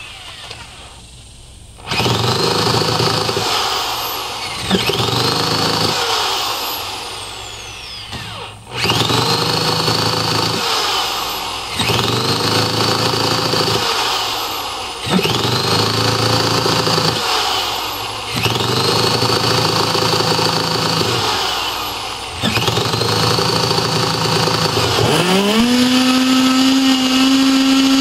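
Webra 61 glow engine in a RamTec ducted fan unit being cranked by a handheld electric starter: the starter whines up to speed and cuts off in repeated bursts of two to three seconds. A few seconds before the end the engine catches, and it runs at a steady high pitch.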